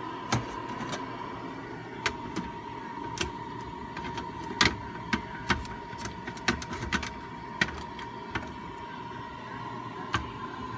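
Electric food dehydrator running with a steady fan hum and a held high tone, while its plastic lid and stacked trays are handled: a string of sharp clicks and taps, the loudest about four and a half seconds in.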